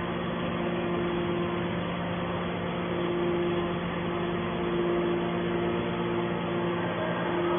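Hydraulic scrap-metal baler's power unit running with a steady hum and a constant tone.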